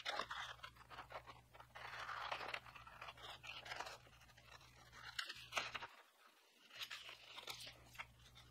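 Scissors snipping through a sheet of paper in a string of short, crisp, irregular cuts, with the paper rustling between them.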